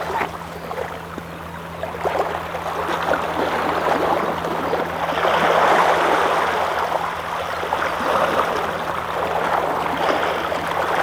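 Steady rushing water noise that swells a little and eases, with a faint low hum beneath it.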